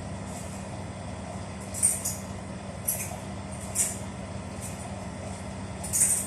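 A steady low hum with evenly spaced tones, like an engine running, broken by four short hissing bursts.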